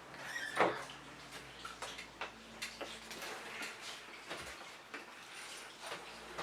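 Scattered light clicks and taps of a bowl and slime-making utensils being handled, with one louder tap about half a second in.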